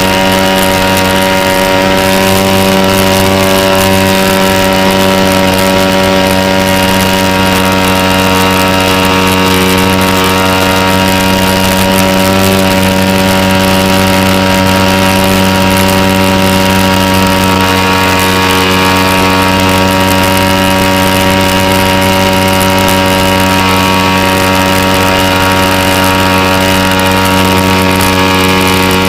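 Model aircraft engine of a Sig Kadet Senior running steadily at a constant throttle in flight, heard close up from on board the airframe. Its pitch and level stay even throughout.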